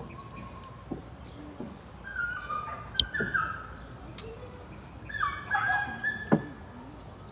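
A dog whimpering and yipping in short high whines, in two bouts, with a sharp click about three seconds in.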